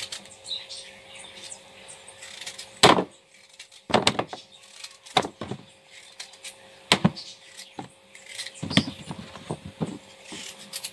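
Knife cutting peeled raw potatoes into cubes: a series of separate sharp cuts and knocks, the loudest about three seconds in.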